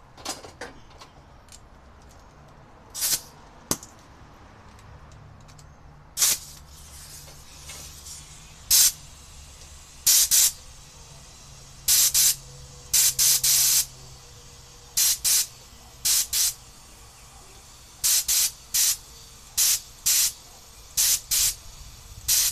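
Compressed air from a McGraw 8-gallon oil-free air compressor hissing out of the output coupler in about twenty short blasts, often in pairs. It is being bled off while the output regulator is turned down to 125 PSI.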